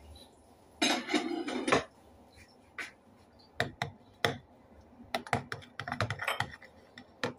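A utensil clicking and knocking against a plastic tub of beaten egg mixture as it is stirred and handled. A quick run of clatter about a second in is followed by scattered single clicks.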